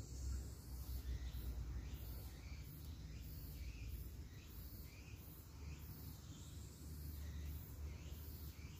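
Forest ambience: short bird chirps several times and a high insect song pulsing about twice a second, over a low rumble.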